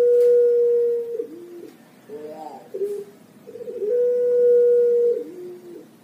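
Puter pelung, a long-voiced Barbary dove, cooing: two long coos, each a steady held note lasting over a second that drops to a short lower note at its end, with a few shorter coo notes in between.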